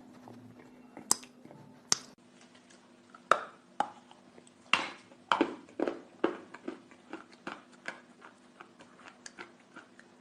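Person biting and chewing big blocks of chalk close to the microphone. Two sharp snaps come first, then a run of crunches at about two a second, loudest around the middle and growing softer towards the end.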